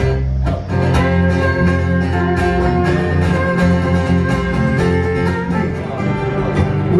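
Live country band playing an instrumental passage with no singing: strummed acoustic guitar with fiddle, ukulele and electric bass.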